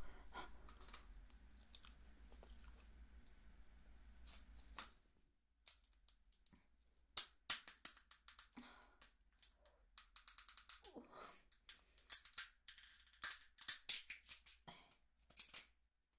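Kitchen scissors snipping through cooked snow crab leg shell, close up. The cuts make a run of sharp cracks and crunches, bunched about seven, ten and thirteen seconds in.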